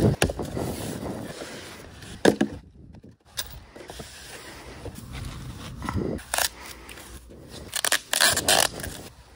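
Cardboard box and white foam packing wrap being handled as a motorcycle engine guard is unboxed: irregular rustling and scraping of cardboard and foam, with several sharper crinkles, a cluster of them near the end as the wrap is peeled off.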